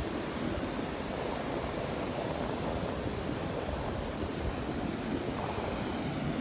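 Rough surf breaking on the beach: a steady rush of waves, with wind buffeting the microphone.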